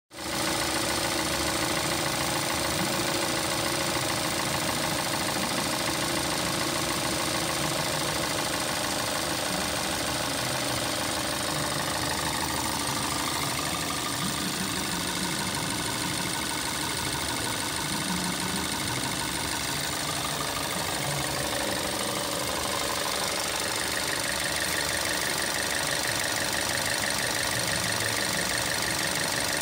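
Hyundai ix35's 2.0-litre GDi four-cylinder petrol engine idling steadily, heard close up with the bonnet open.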